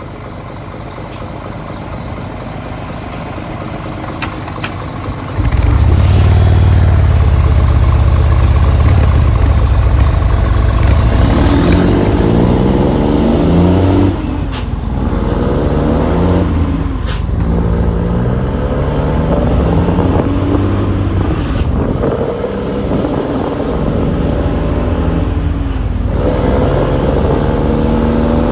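New Scania truck's diesel engine idling, then pulling away about five seconds in and accelerating hard through several gears. The note rises with each gear and falls back at each shift, with brief hisses of air at the shifts.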